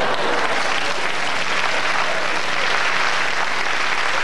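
A large theatre audience applauding, a dense and steady clatter of many hands.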